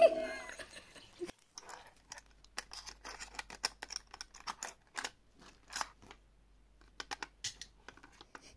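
Irregular light clicks and taps of hands handling a plastic-framed makeup mirror whose glass is shattered, with loose shards of broken mirror glass clinking. A music bed fades out at the very start.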